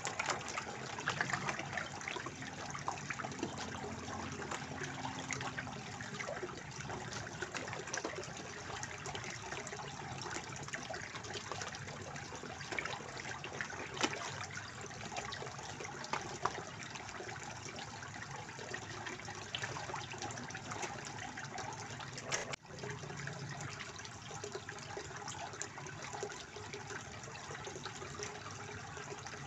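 Water from a koi pond fountain pouring and splashing steadily into the pond, a continuous trickle with small crackling splashes. It is broken once by a momentary dip about two-thirds of the way through.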